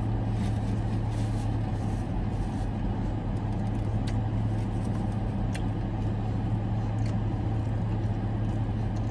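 Steady low hum of a parked Dodge Challenger idling, heard from inside the cabin, with a few faint chewing clicks.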